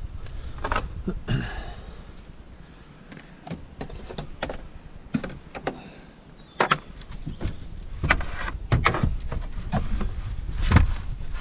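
Junk being handled and fitted into a car: scattered knocks, clunks and scrapes, quieter for a moment midway and busier in the second half, with a heavier knock near the end.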